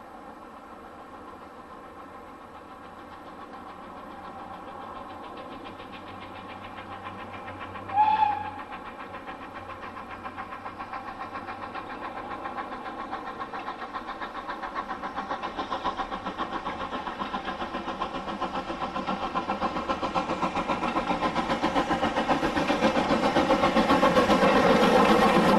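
Steam locomotive hauling a passenger train, its rhythmic exhaust beats growing steadily louder as it approaches. About eight seconds in, a short whistle blast is the loudest sound.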